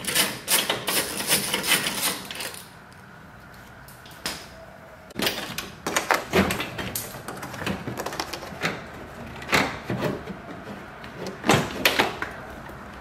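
A socket ratchet clicking quickly as a bolt is backed out, then scattered knocks and plastic rattles as the headlight assembly is worked loose and lifted out of the car's front end.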